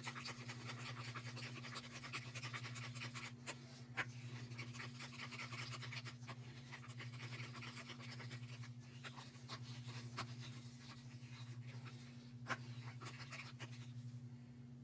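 Wooden craft stick stirring acrylic paint in a small plastic cup: a fast, steady scraping and swishing that stops near the end. A steady low hum runs underneath.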